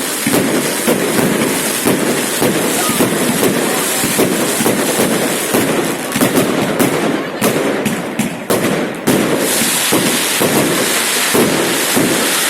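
Fireworks salute going off in rapid succession: a dense, continuous crackle of bangs that thins into separate sharp cracks for a couple of seconds past the middle, then thickens again.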